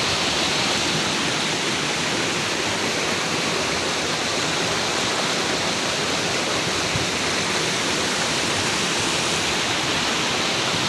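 Medium-sized river rushing steadily, an even, unbroken noise of flowing water.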